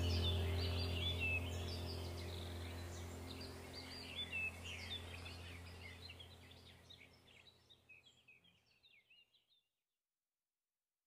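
Birds chirping and twittering over a steady low hum, the whole fading out gradually to silence about eight seconds in.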